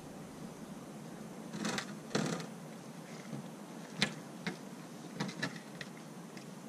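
Two short rustles, then a sharp click and a few small taps, from paper plates and fish being handled by hand, over a steady low outdoor hiss.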